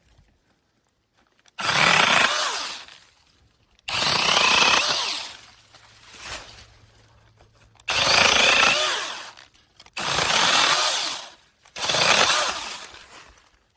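Cordless brushless mini chainsaw run in five short bursts of about a second each, the motor spinning up sharply on each trigger pull and winding down between them.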